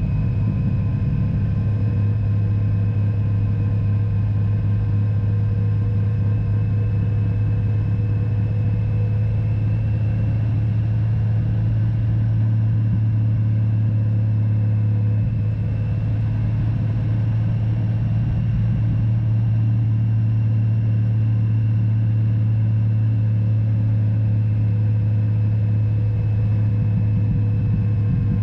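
Touring motorcycle cruising: a steady, loud engine drone with low rumble, and faint whining tones that drift slightly up and down in pitch.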